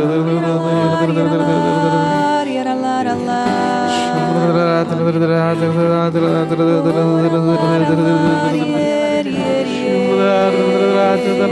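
Slow devotional worship music: long sustained chords that change only every few seconds, with a voice singing or chanting softly over them.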